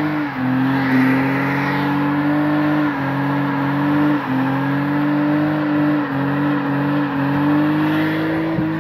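Car engine held at high revs during a tyre-smoking burnout; its steady drone sags briefly and climbs back every second or so.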